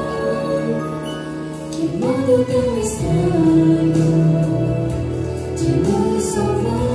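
Singing of a Christian cantata through microphones over instrumental accompaniment, with sustained, gliding sung notes.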